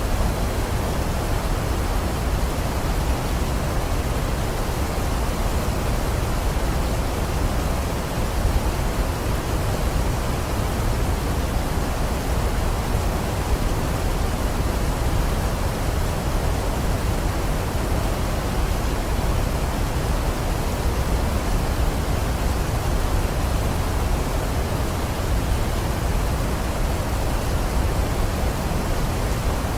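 Waterfall: falling water making a steady, even rushing noise, heaviest in the low end, with no change throughout.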